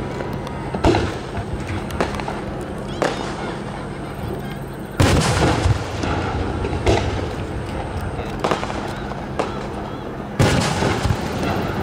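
Aerial firework shells bursting overhead, about six booms a second or two apart. The loudest come about five seconds in and again near the end.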